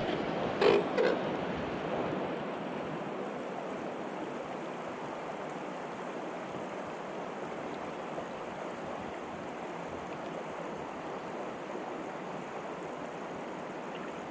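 River current rushing steadily over the stones. About a second in come two brief, louder knocks or splashes.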